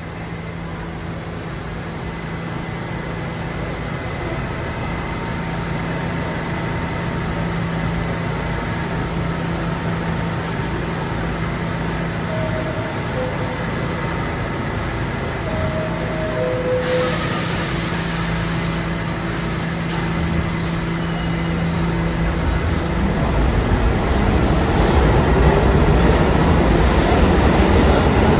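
New York City subway train in a station: a steady hum with a falling two-note chime sounding twice midway, then a hiss, and a train's rumble grows louder over the last few seconds.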